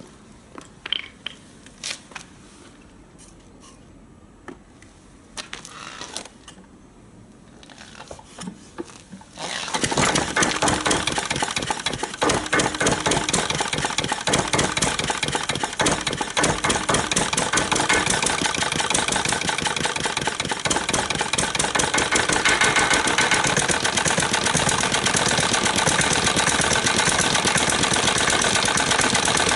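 Early Yanmar K2 single-cylinder diesel stationary engine catching about ten seconds in, after a few clinks and knocks, then running with a fast, steady firing beat. It starts because the cylinder has been warmed with boiling water poured into its hopper.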